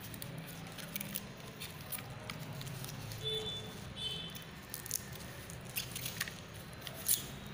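Handling noise from plastic headphones and the clear plastic sheet under them: rustling and crinkling with scattered clicks, the loudest about 7 seconds in, over a low steady hum.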